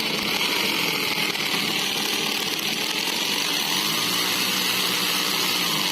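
Electric hammer drill running with a rough, rasping noise instead of a smooth hum. The sign of wear inside the gear head: the piston of the hammer mechanism is badly worn and rough.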